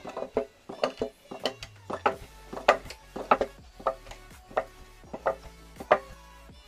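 Wooden dhenki (foot-operated lever rice pounder) pounding soaked rice into flour for pitha: the pestle knocks into the pit in a steady rhythm, about one and a half strokes a second, stopping about six seconds in. Faint background music plays underneath.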